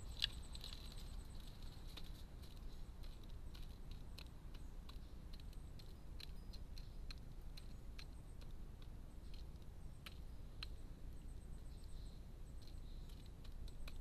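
Wood pigeon pecking food from a feeder: irregular sharp clicks of its bill on the tray, the sharpest about a quarter-second in, over a faint steady low hum.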